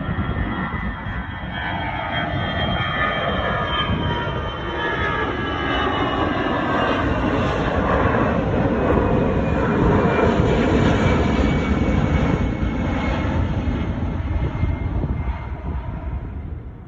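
Jet airliner taking off: engines at takeoff thrust, a rushing roar that grows louder as it passes, with whining engine tones gliding down in pitch, then dropping away near the end.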